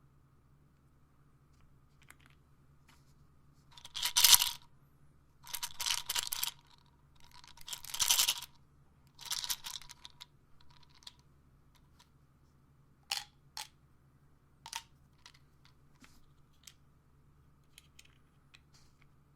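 Pills rattling in a plastic pill bottle, shaken in four short bursts, followed by a few sharp clicks and light ticks.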